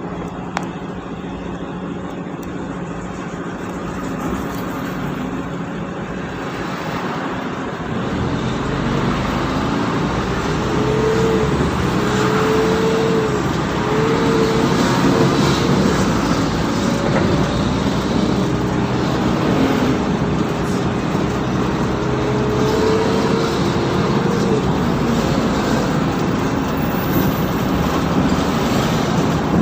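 Mercedes-Benz O530 Citaro city bus running: a steady low drone that grows louder and fuller about eight seconds in, as when the bus is put under load, with a whine that comes and goes twice afterwards.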